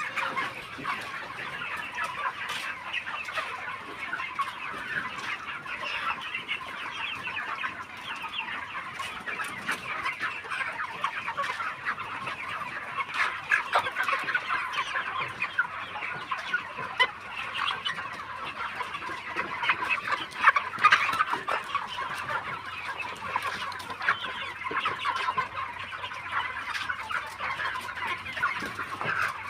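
A large flock of farmed chickens calling together: a continuous chorus of many overlapping short, high chirps and clucks.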